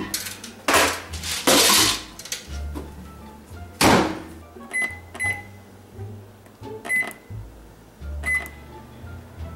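GE over-the-range microwave being loaded and set. Knocks and rustles come as a container goes inside, a loud thud about four seconds in as the door shuts, then four short keypad beeps as a long cook time is entered.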